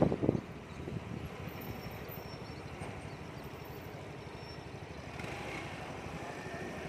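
A two-wheeler's small engine runs steadily at low speed in slow traffic, heard from the rider's seat. A few sharp knocks come right at the start.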